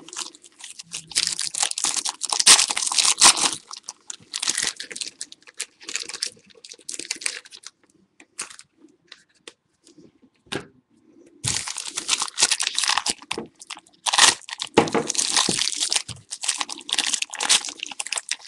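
Sealed trading-card pack wrapping being torn and crinkled open by hand: a stubborn wrapper, worked in crackling bursts with a quieter pause in the middle.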